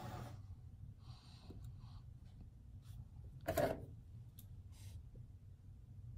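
A man puffing on a tobacco pipe: soft breaths and small lip-smacking clicks, with one louder breath about three and a half seconds in, over a low steady hum.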